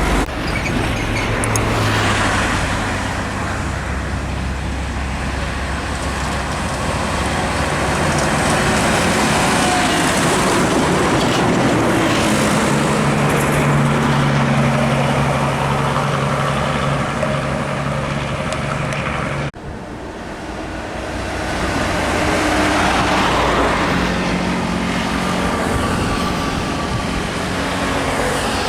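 Heavy trucks passing on a highway: engines running and tyre noise, with a steady low engine drone for several seconds in the middle. The sound breaks off abruptly about two-thirds through, then swells again as more traffic passes.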